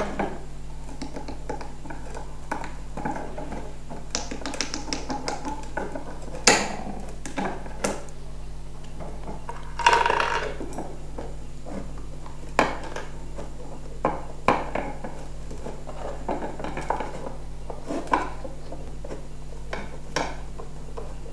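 Small steel ball bearings and metal parts clinking and knocking as flanged bearings are pushed into the holes of an acrylic frame around its steel rods. Scattered short clicks and taps, the loudest about six and a half seconds and ten seconds in.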